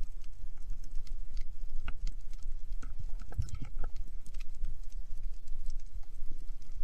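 Underwater sound through a camera housing: a steady low rumble of moving water, with scattered sharp clicks and crackles that cluster a little after the middle.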